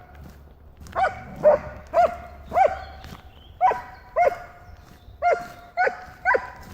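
A dog barking repeatedly, about nine sharp barks at an uneven pace of one or two a second.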